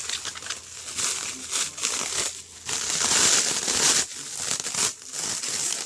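Packaging crinkling and rustling as it is pulled off a lightsaber hilt, in irregular handfuls with a couple of short pauses.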